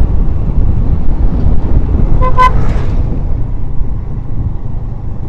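Vehicle horn giving two quick toots about two seconds in, over a steady low rumble of wind on the microphone and engine noise from riding.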